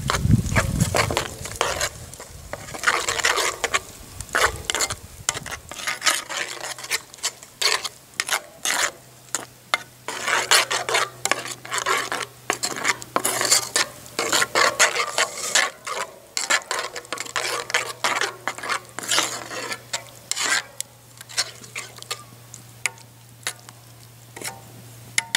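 Metal spoon stirring and scraping through a skillet of tomato gravy, in irregular strokes against the pan.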